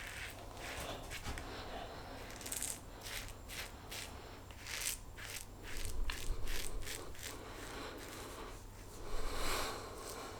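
Quad-edge safety razor scraping through lathered stubble in a series of short, quick strokes, with a louder, longer stroke near the end.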